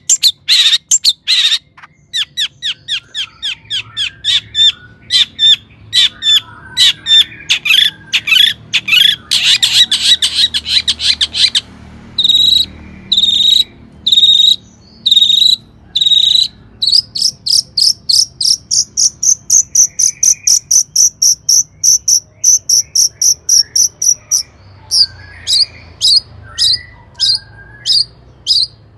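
Long-tailed shrike (cendet) singing in loud, rapid runs of sharp chattering notes. Partway through it slows to a few separate calls, then goes into a long, fast, higher-pitched trill before returning to spaced notes.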